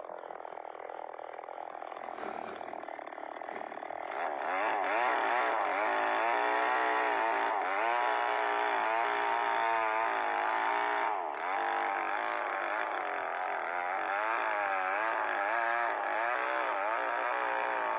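Two-stroke chainsaw ripping a log lengthwise, its engine pitch wavering up and down as the chain bites and frees in the long cut. It is quieter for the first few seconds, comes up louder about four seconds in, and dips briefly once near the middle.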